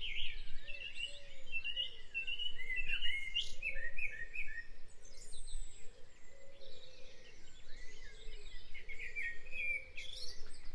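Dawn chorus recording: many birds singing at once, with overlapping high chirps and trills and a lower call repeating underneath.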